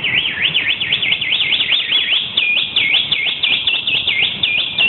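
High warbling whistle, trilling rapidly up and down about five times a second. About halfway through it shifts to a higher held note broken by quick dips, and it stops right at the end.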